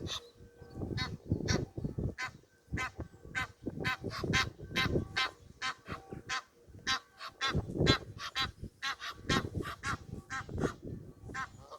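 Many birds giving short honking calls in quick succession, several a second, over a low uneven rumble.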